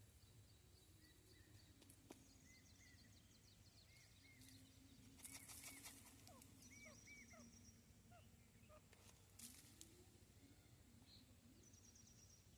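Female grey francolin calling faintly: short rising-and-falling notes, often in pairs, repeated every second or so, with thin high trills and a couple of brief crackles among them.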